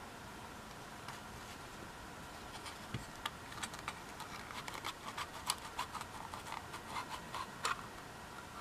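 Small plastic clicks, taps and scrapes of a Makita lithium-ion battery pack's circuit board and terminal block being handled and worked loose from the cell pack, growing busier about halfway through, over a steady faint hiss.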